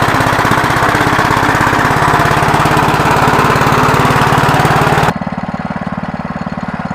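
Small engine running with a rapid, even beat. About five seconds in it turns suddenly quieter and duller, still running.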